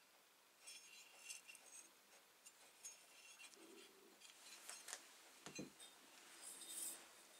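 Faint handling noises of small brass blowtorch parts: light rubbing and clinks as they are turned in the hands, and a soft knock about five and a half seconds in as a part is set down on the cloth-covered workbench.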